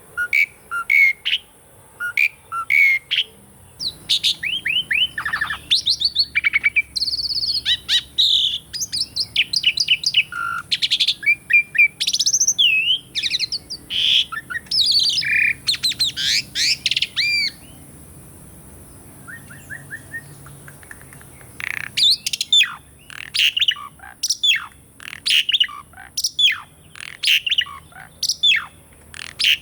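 Javan pied starling (jalak suren) singing: a fast, varied run of whistles, chirps and harsher notes, dropping to a few faint notes for several seconds past the middle before the full song resumes.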